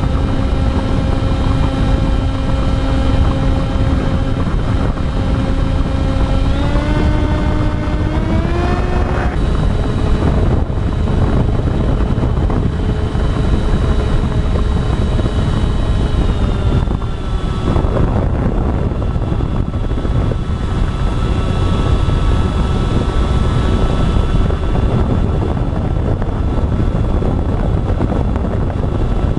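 Propeller whine of a radio-controlled model aircraft flying, a steady pitched hum that rises in pitch over a couple of seconds about seven seconds in, holds, then drops slightly around seventeen seconds. A steady low rumble runs underneath.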